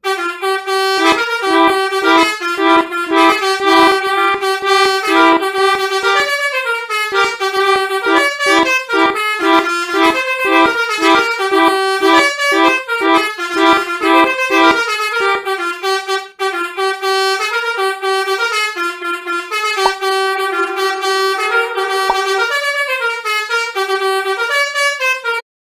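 Melodica (pianika) playing the Basuri 'telolet' bus-horn tune: a quick run of reedy held notes changing several times a second, with a brief break about sixteen seconds in.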